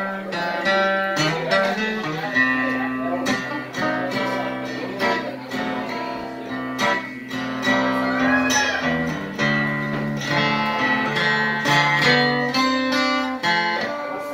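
Solo acoustic guitar playing an instrumental passage without vocals: a quick run of picked melody notes over low bass notes that change every second or so.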